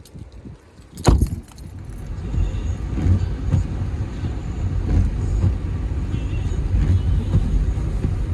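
A sharp knock about a second in, then the low rumble of a car driving, growing louder and then holding steady.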